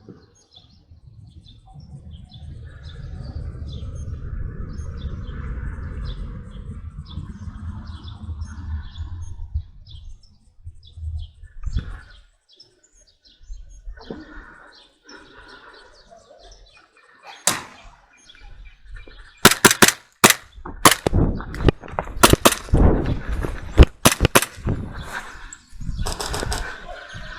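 Airsoft guns firing an irregular series of sharp shots, some in quick runs, through the last third, with birds chirping. A low rumbling noise runs for several seconds in the first third.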